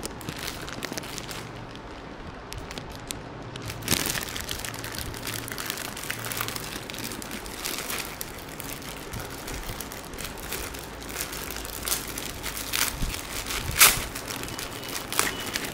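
Clear plastic packaging crinkling and crackling as it is pulled and torn open by hand without scissors, with irregular sharp snaps, the loudest shortly before the end.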